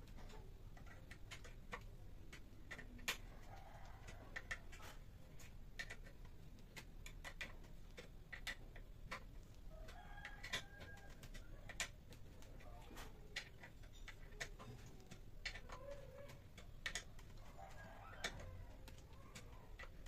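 Irregular sharp clicks and small snaps of a hand chisel cutting into a wooden block, a few every second. Chickens cluck faintly in the background.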